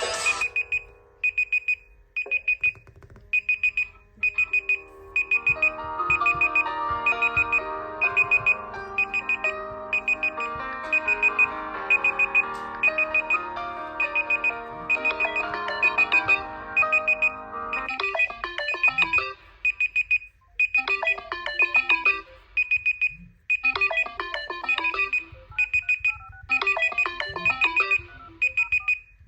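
Smartphone ringtone playing: a short high electronic beep repeats about twice a second, with a synthesized melody joining in about five seconds in and giving way to choppy chord bursts past the halfway mark.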